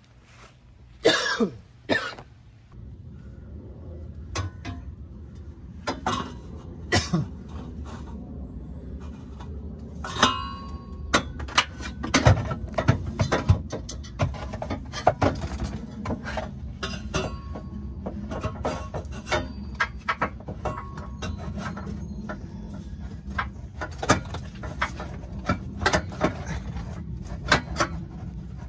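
Exhaust pipe and its rubber-isolated hanger being fitted by hand under a Jeep: scattered knocks, clicks and scrapes of metal over a steady low hum. Two loud short sounds come about a second in.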